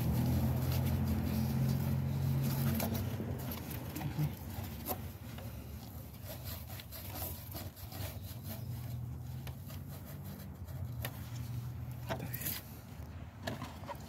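Abrasive scuff pad scrubbing the coolant outlet's seat on the engine, irregular rubbing and scraping with scattered clicks, cleaning the surface so the new seal won't leak. A low steady hum sounds under it for the first few seconds, then fades.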